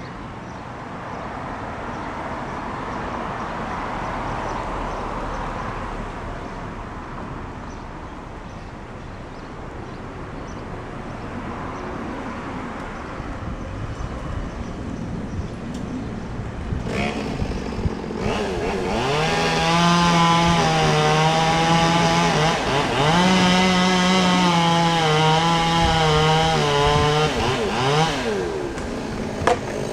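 Chainsaw cutting wood: for the first half it is faint and wavering, then it runs loud and steady at high revs for about ten seconds, its pitch dropping and recovering under the load of the cut, and stops near the end.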